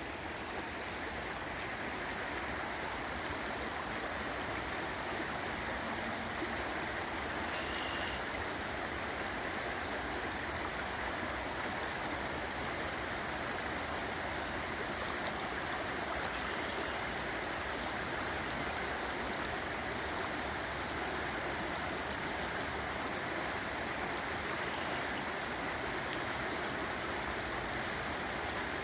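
River water running: a steady, even rush of flowing water.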